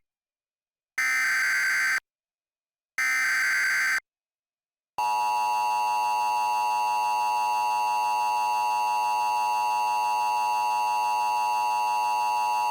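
Emergency Alert System SAME header: the screeching data tones come in blocks about a second long with a second of silence between them, two of them complete after the end of one at the very start. About a second later the EAS two-tone attention signal starts, a steady harsh tone held without a break to the end.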